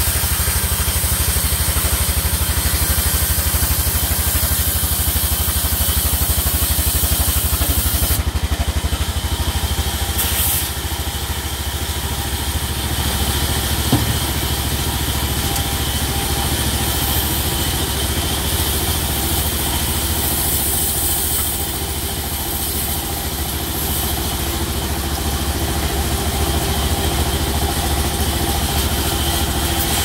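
Sawmill band saw and its drive machinery running with a steady, engine-like drone, with one short knock about halfway through.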